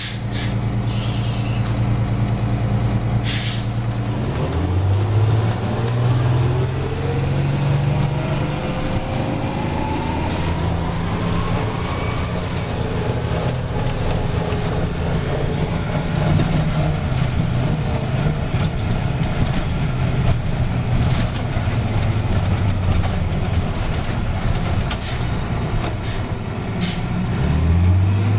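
Detroit Diesel 6V92TA two-stroke V6 diesel in a 1985 GMC RTS transit bus, idling steadily, then speeding up about four seconds in, its pitch climbing over several seconds and holding high, with another rise near the end while the bus stands still.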